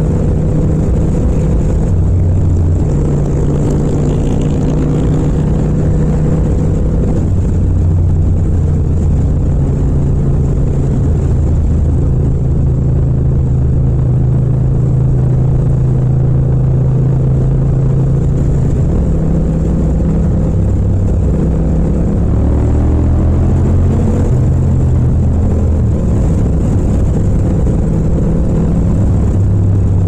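Yamaha MT-07's 689 cc parallel-twin engine running under way in fifth gear, its note holding steady with gentle dips and rises as the throttle is eased and opened. The pitch climbs as it accelerates about two-thirds of the way through.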